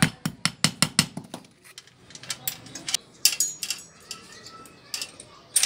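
A small hammer tapping a steel bicycle chain laid on a hammer head used as an anvil, about five quick taps a second for the first second or so. Then the loose roller chain clinks and rattles as it is handled, with a sharper click near the end.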